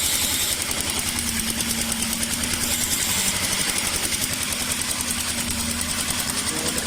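2006 Ford Expedition's 5.4-litre V8 running steadily with a rapid even pulse after fuel is added by hand, a test showing that the crank-no-start fault lies in the fuel supply: the fuel pump is not working.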